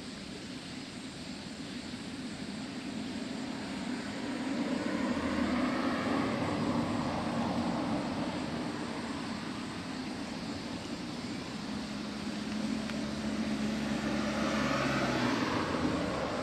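A steady engine drone with a low hum, swelling louder about four to eight seconds in and again near the end.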